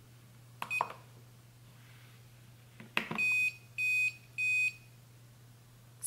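Control base of a Ulalov electric gooseneck kettle: a button click about a second in, another click at about three seconds, then three short high beeps in an even row, confirming the keep-warm hold setting. A faint steady low hum runs underneath.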